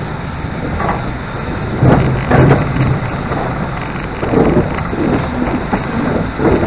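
GWR King class steam locomotive 6023 'King Edward II', a four-cylinder 4-6-0, moving slowly with uneven exhaust beats, the loudest about two seconds in, over a steady rumble of wind on the microphone.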